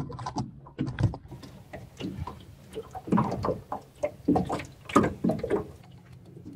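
Small waves slapping against the hull of a small aluminum fishing boat, heard as an irregular run of hollow knocks and splashes.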